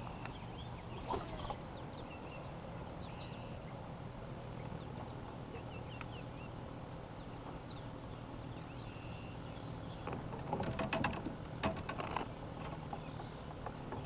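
Scattered faint bird chirps over a steady low hum, with a quick run of clicks and knocks about ten to twelve seconds in.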